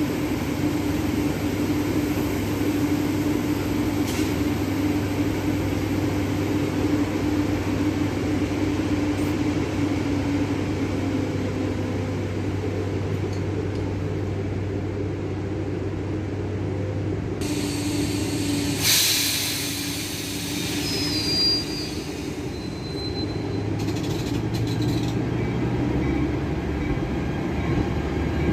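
New Jersey Transit commuter coaches rolling slowly past: a steady rumble with a low hum. About two-thirds of the way in come two short knocks and a few faint, brief high wheel squeals.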